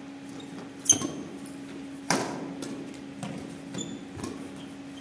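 Badminton rackets striking the shuttlecock during a doubles rally: a string of sharp hits, the loudest about a second in with a short ringing ping and another about two seconds in, with softer hits after. A steady low hum runs underneath.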